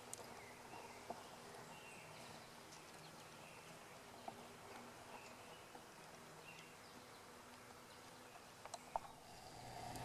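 Near silence: faint spring woodland ambience with a few faint high chirps and scattered soft clicks, the loudest cluster about nine seconds in.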